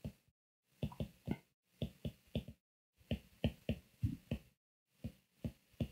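Stylus tapping and scratching on a tablet screen during handwriting: a run of faint, short, irregular clicks in small clusters, with brief silent gaps between them.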